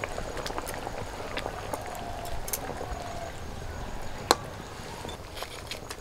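Broth simmering in a metal kadai as fried small fish are dropped in and stirred with a metal ladle: light splashes and scattered clinks, with one sharp clink of the ladle against the pot about four seconds in.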